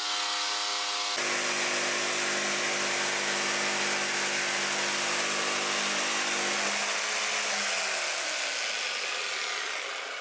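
Electric jigsaw running and cutting through wood, its blade tilted to 45 degrees in a miter jig. Near the end the saw is switched off and its motor pitch falls as it winds down.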